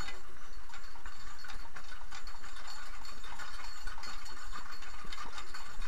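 Horse-drawn cart on the move: steady rattling and small clinks from the cart and the horse's harness, over a low rumble.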